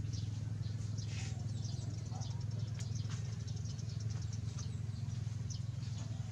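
Small birds chirping, with many short, high calls scattered throughout, over a steady low hum.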